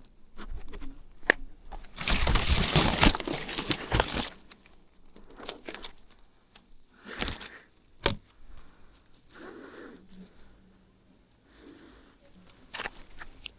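Irregular rustling, scraping and sharp clicks, like handled gear or brushed foliage, with one loud two-second rustle about two seconds in.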